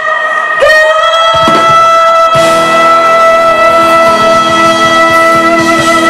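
Live pop band playing a song's ending: one long held note runs on, and the fuller band with a cymbal wash comes in about two and a half seconds in.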